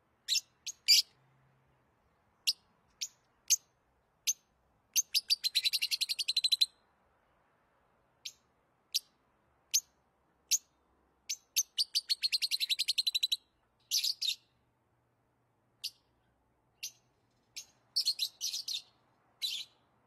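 Lovebirds chirping: sharp, high single chirps broken by several fast runs of rapid chirps.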